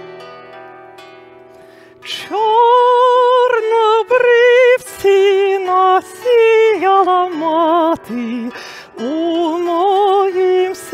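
Bandura, the Ukrainian plucked string instrument, playing soft notes that ring and fade. About two seconds in, a woman begins singing a slow Ukrainian song over it, much louder, in long held notes with wide vibrato.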